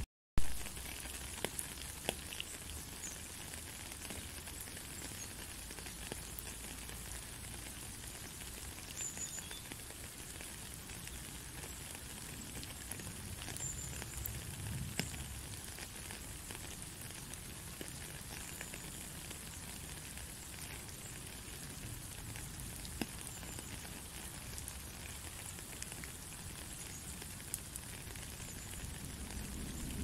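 Steady rain falling, an even hiss with scattered drips and ticks. A brief break and a sharp click come right at the start, and a few faint, short high tones sound now and then.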